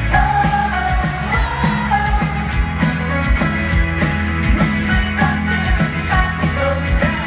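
Indie folk band playing live: sung vocals over guitars and drums, with an even, steady beat.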